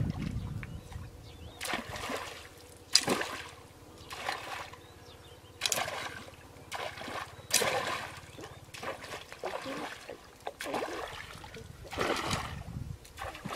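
Shallow muddy water splashing and sloshing as a person wades and sweeps a pole through it, in irregular splashes every second or so, with a low steady buzz underneath.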